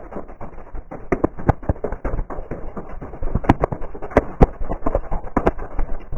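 A rapid, irregular series of knocks and taps, several sharper and louder ones between about three and a half and four and a half seconds in.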